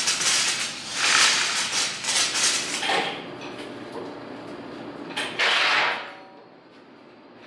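Bursts of scraping and sliding as heavy timber blocking and metal are shifted across floor plates, with three main scrapes about one, two and five seconds in, the first the loudest.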